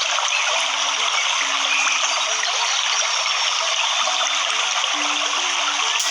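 Waterfall water pouring and splashing, a steady, unbroken hiss.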